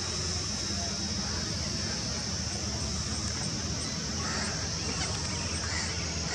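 Small 4-channel electric RC helicopter (C186 Pro BO-105 scale model) in flight, its motor and rotors buzzing, against a steady high-pitched hiss. A run of faint, evenly spaced chirps comes in the first half.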